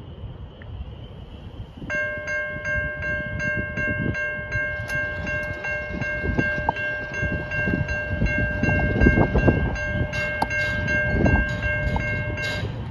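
Railroad crossing warning bell, set off by an approaching train. It starts about two seconds in, rings with a rapid, even ding at about three a second over a low rumble, and cuts off near the end.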